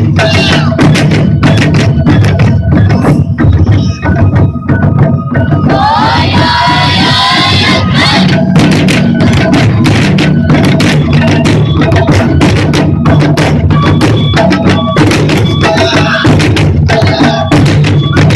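Japanese taiko drums played by a drum ensemble, dense fast strikes with a steady high tone sounding over them. About six seconds in, a burst of voices shouting together for about two seconds.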